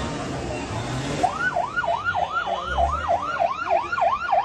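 Emergency-vehicle siren on a fast yelp, sweeping up and down about three times a second, starting about a second in over the noise of a crowd.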